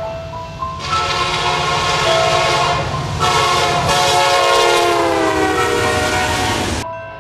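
BNSF diesel locomotive's multi-chime air horn blowing two long blasts for a grade crossing. The chord drops in pitch as the locomotive passes close by, then cuts off shortly before the end. A steady low rumble from the locomotives' engines and the passing stack train runs underneath.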